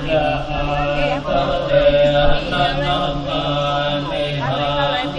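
Buddhist sutra chanting: voices intoning in a steady, droning monotone, the low pitch held with only slight changes in the tones above it.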